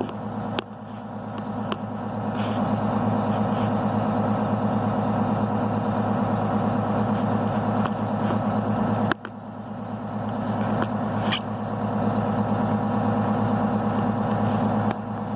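Farm vehicle engine running steadily, a low drone. The level drops suddenly twice, about half a second in and about nine seconds in, then builds back up, and there are a few faint clicks.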